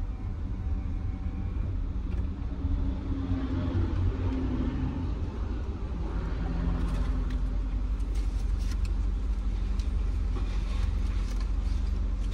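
Car engine idling, heard from inside the cabin as a steady low rumble, with a few light clicks in the second half.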